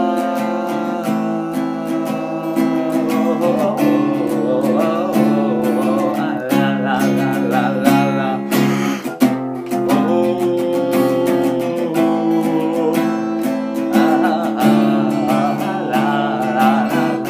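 Acoustic guitar strumming chords steadily through an instrumental passage between verses.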